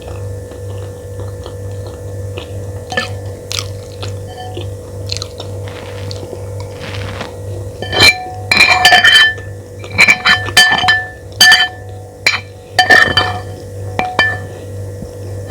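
Metal spoon clinking and scraping against a plate while eating fried rice, in a series of sharp ringing clinks from about halfway on, with faint clicks before, over a steady low hum.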